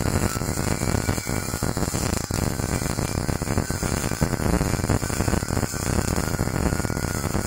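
MIG welding arc crackling steadily, a dense, even frying sizzle of fine irregular crackles with no pauses.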